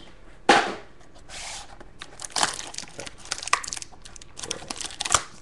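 A trading-card box being opened and emptied by hand: cardboard and packaging crinkling and tearing in a run of irregular sharp crackles, the loudest about half a second in.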